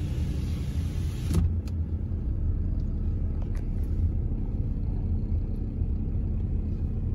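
Steady low road and engine rumble heard from inside a moving car's cabin. A higher hiss over the rumble drops away suddenly about a second and a half in, leaving the rumble alone with a few faint clicks.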